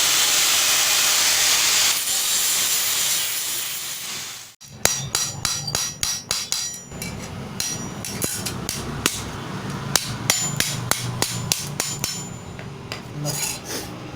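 A steady, hissing noise of excess steel being removed, fading out about four seconds in. Then a hammer strikes a small sheet-steel plate again and again at an irregular pace, each blow with a short metallic ring, as the plate's edge is bent over.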